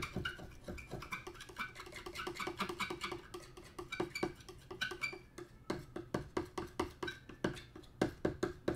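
Metal palette knife stirring gouache in a plastic palette well: a quick run of light clicks and soft scrapes, several a second, as the knife taps and drags against the plastic.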